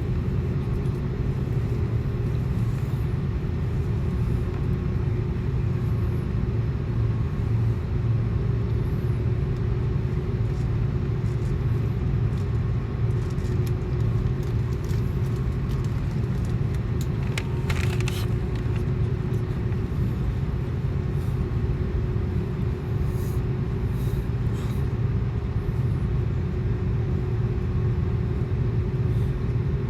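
Steady low drone of an Airbus A330-200 airliner's engines and airflow heard inside the cabin, with a faint steady hum above it. A brief higher-pitched sound comes in about eighteen seconds in.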